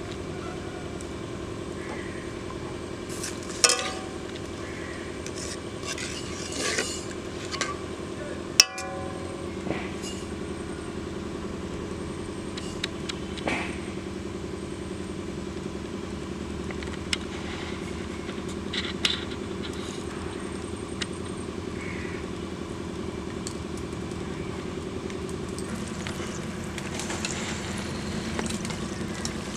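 Scattered clinks and taps of steel spoons and bowls, one sharp ringing knock about eight seconds in, over a steady low hum.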